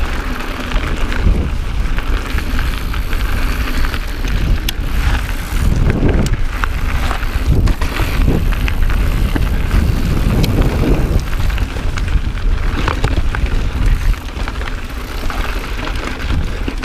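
Wind rumbling on an action camera's microphone over the crunch and rattle of a full-suspension 29er mountain bike riding over a rocky gravel trail, with sharp clicks and knocks as it rides over bumps.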